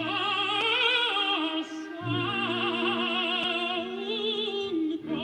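A male opera singer singing slow, sustained phrases with wide vibrato over held orchestral notes, with a short breath break about two seconds in.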